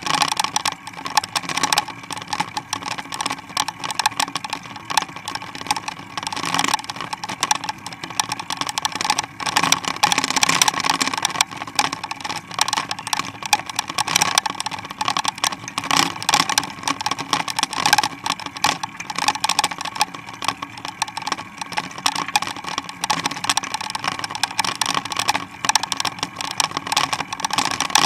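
Rattling and clicking of a mountain bike and its Springer dog attachment being ridden along a street, over a steady hum, with no letup.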